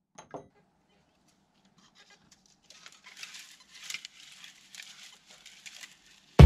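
Faint footsteps and rustling in dry grass, a soft irregular crackle that starts a little under halfway in, after a couple of small clicks near the start. Music cuts in right at the end.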